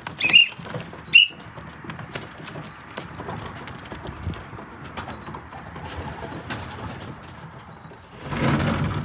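Racing pigeons cooing and flapping their wings as they crowd through the loft entrance. Two short, sharp, high-pitched sounds come about a second apart near the start, and a burst of rustling noise comes near the end.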